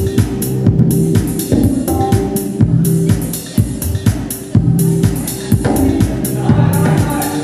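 Dance music playing, with a steady drum beat over a repeating bass line.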